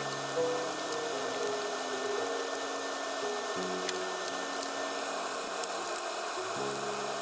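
Egg frying in hot oil in a wok: a steady sizzle with scattered small pops, over background music.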